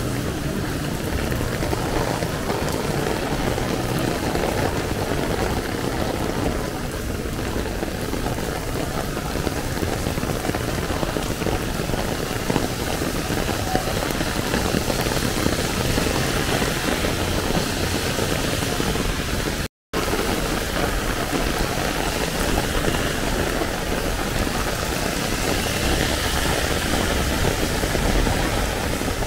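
Heavy rain falling steadily on an open umbrella overhead, with a low rumble of street traffic beneath. The sound cuts out completely for a split second about two-thirds of the way through.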